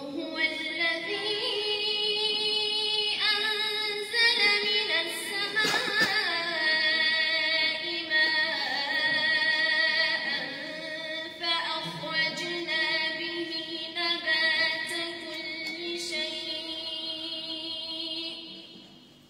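A woman's voice reciting the Quran in melodic tajweed style, drawing the words out in long, ornamented, wavering held notes. The phrase fades out near the end.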